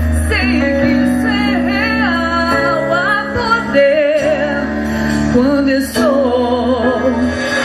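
Female solo voice singing a slow gospel melody with wide vibrato, accompanied by an orchestra holding sustained chords over long bass notes.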